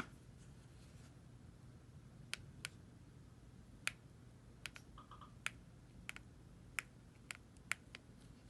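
Left ear cup of Sony WH-1000XM3 headphones creaking: a dozen or so faint, short clicks at irregular intervals, with a brief squeak about five seconds in. The creak is a fault of the left side only.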